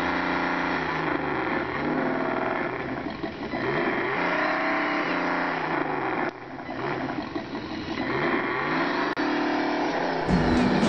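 Motor and gears of a radio-controlled Toyota FJ45 scale truck whining while it drives, the pitch rising and falling again and again as the throttle changes. Music starts just before the end.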